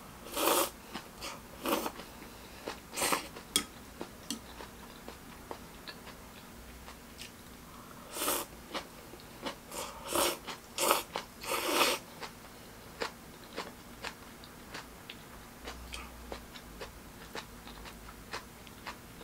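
Close-up eating sounds: rice noodles being slurped from a bowl and chewed, with scattered small clicks. A run of longer slurps comes about eight to twelve seconds in.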